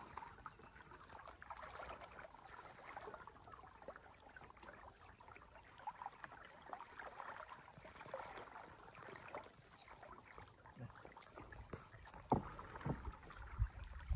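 Faint water sounds of a canoe on the river: soft lapping and trickling against the hull, with a few low knocks or thumps near the end.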